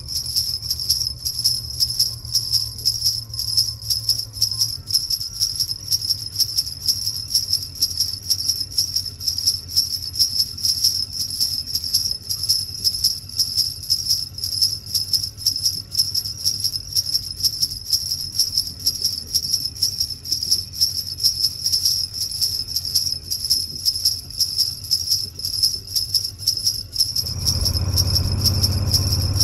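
Jingle bells shaken in a steady rhythm, about two shakes a second, starting and stopping abruptly, over the low hum of the moving vehicle.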